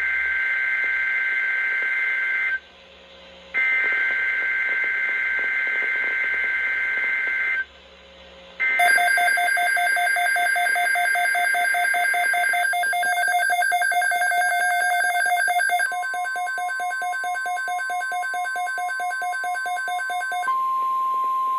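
Emergency Alert System SAME header data bursts: a harsh two-pitch digital warble sent three times, each lasting a few seconds, with about a second of quiet between them. Overlapping the third burst, a fast-pulsing electronic alert tone begins. About a second before the end, a steady single-pitch NOAA Weather Radio alert tone takes over.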